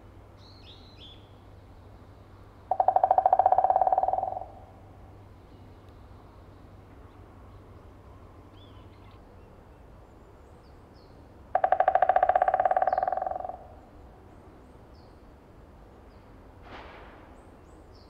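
White-backed woodpecker drumming on a tree branch: two rapid rolls of about two seconds each, several seconds apart, the wood ringing at a steady pitch and each roll fading at its end. Faint chirps of small birds come in between.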